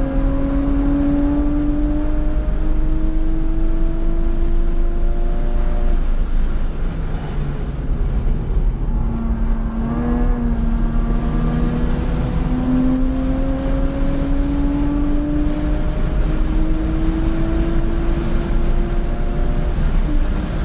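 Porsche 911 Carrera 2 (997) flat-six engine heard from inside the cabin under hard acceleration at track speed. Its pitch climbs, falls away between about six and ten seconds in, then climbs again, over steady tyre and wind noise.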